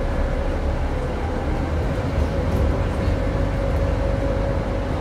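Interior of a Scania N230UD double-decker bus on the move, heard from a passenger seat: a steady low drone of the engine and running gear with a thin steady whine above it.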